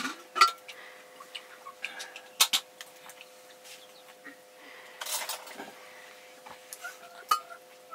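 Metal spoon clinking against a small aluminium cooking pot: a handful of separate clinks and knocks a few seconds apart, over a faint steady hum.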